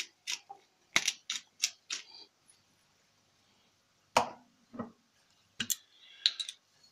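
A handheld pepper grinder twisted over a bowl of raw eggs, giving a quick run of sharp grinding clicks about three a second, then stopping. A few separate knocks follow later, and a short cluster of clicks comes near the end.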